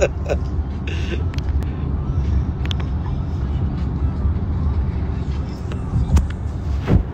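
Steady low rumble of a car in motion heard from inside the cabin, with a couple of short knocks near the end.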